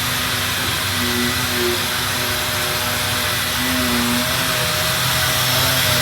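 Steady running noise of a robotic sanding cell sanding MDF doors: an even, constant hiss from the sanders, with a low hum and a few faint motor tones that waver and come and go.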